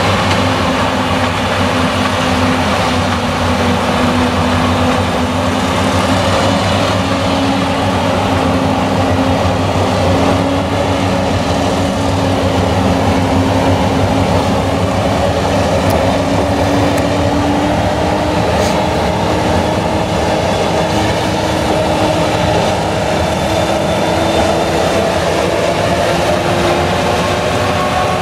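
Claas Jaguar 970 forage harvester chopping maize, its MAN V8 engine running steadily under load. A steady whine climbs slowly in pitch over the stretch.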